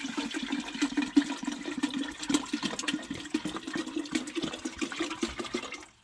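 Water pouring from a 2-litre plastic bottle into a stainless steel water-heater tank, gurgling steadily with a constant low note, then stopping abruptly near the end.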